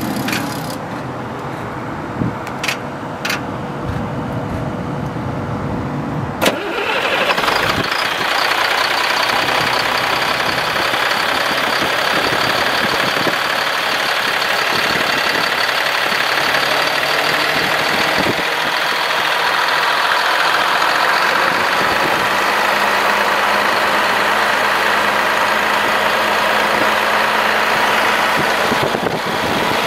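Caterpillar C7 inline-six diesel engine starting: a few clicks, then about six seconds in it fires and keeps running steadily at idle, heard close up from the engine bay.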